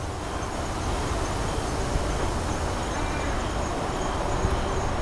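Steady low rumble of distant city traffic, an even noise with no single event standing out.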